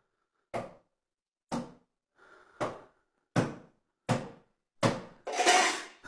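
A regular series of sharp thumps, about one every 0.8 seconds, each dying away quickly, ending in a longer, louder rushing noise near the end.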